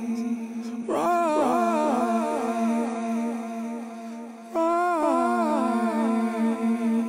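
Music: a steady low drone under a wordless descending vocal phrase hummed into the microphone. The phrase comes about a second in and again just past the middle, and each time trails off in fading echo repeats.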